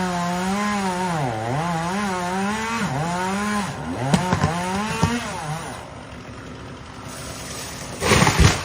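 Two-stroke chainsaw cutting pine, its pitch dipping and recovering as the chain loads up in the wood. A few sharp cracks come about four seconds in, then the saw runs lower and quieter. A short, loud crash comes near the end.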